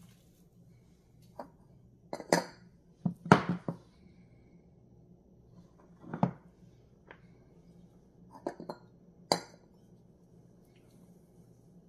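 Kitchenware handled on a granite countertop: a scattered series of short, sharp clinks and knocks from a plastic ice cream tub, a metal ice cream scoop and a glass dish. The knocks come in small clusters, and the loudest falls about three seconds in.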